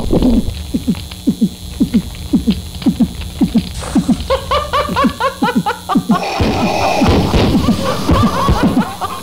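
Experimental electronic sound piece: a string of short, falling low blips, about three a second. About four seconds in, a quick run of higher repeating chirps joins them, and from about six seconds a hissing, buzzing layer with steady tones comes in.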